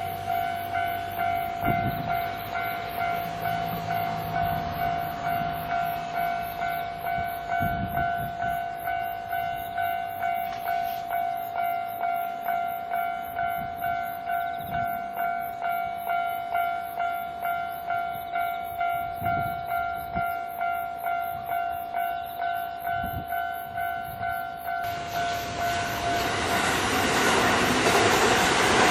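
Japanese level-crossing warning bell ringing in a steady, even rhythm of just under two strokes a second. About 25 seconds in, the rising noise of an electric train passing over the crossing drowns it out.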